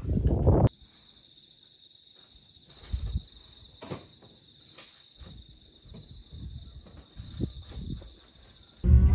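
Crickets chirping in a steady high-pitched chorus, with a few faint knocks. It starts right after a short burst of low rumbling noise that cuts off suddenly under a second in.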